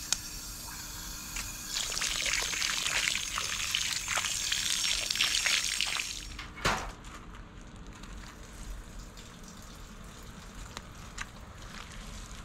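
Water from a hose watering wand pouring onto loose potting soil, a steady hiss that grows louder about two seconds in and stops about six seconds in. A single short knock follows, then quiet scratching of hands pressing the wet soil down.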